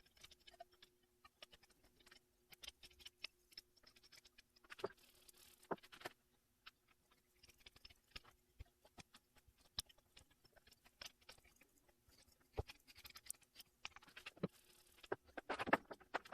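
Irregular light clicks and taps, a louder cluster near the end, over a faint steady hum.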